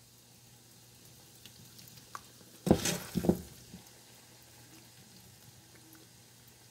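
A spoon scooping creamy macaroni and ground beef out of a pot and dropping it into a glass pie dish, with two loud scoop-and-drop sounds close together about three seconds in. Otherwise quiet, with a faint low hum and a few light clicks.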